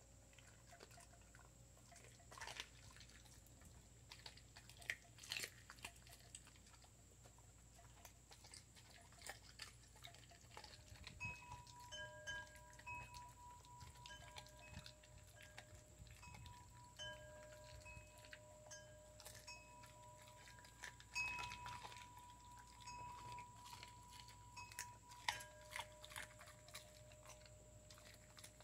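Siberian Husky chewing raw chicken bones: scattered sharp crunches between quieter wet chewing. From about ten seconds in, several held, ringing tones at different pitches sound along with it.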